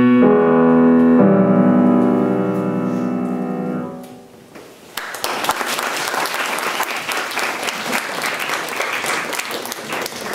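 Steinway grand piano sounding the final chords of a piece, two chords struck near the start and left to ring and fade over about four seconds. About five seconds in, audience applause breaks out and carries on.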